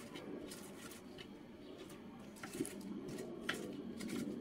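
Faint pressing and scraping of a knife blade crushing garlic cloves against a wooden cutting board, with a couple of light ticks, over a low steady hum.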